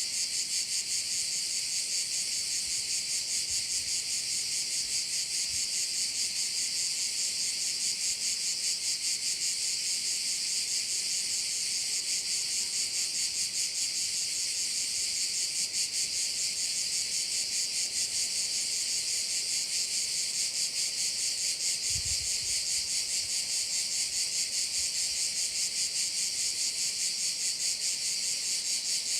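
A dense chorus of cicadas (cvrčci) singing. The sound is high-pitched and steady, with an even, rapid pulsing that never breaks.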